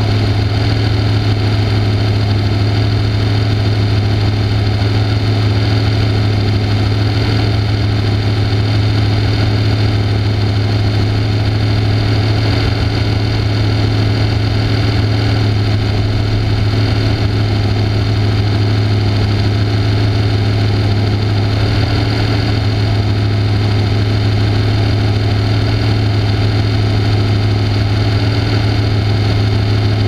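Off-road race car's engine idling steadily while the car sits stationary, heard from a camera mounted on the car, with a strong constant low hum and no revving.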